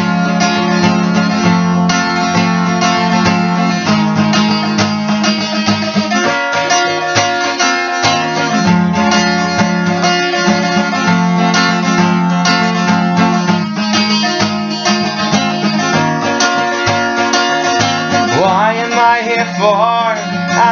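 Rock song's guitar intro: acoustic guitar chords played steadily. A singing voice comes in near the end.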